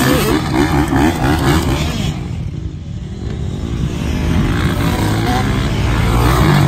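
Dirt bike engines revving on a motocross track, the pitch rising and falling as the riders work the throttle over the jumps. The sound drops back about two seconds in, then builds again and is loudest near the end as a bike comes closer.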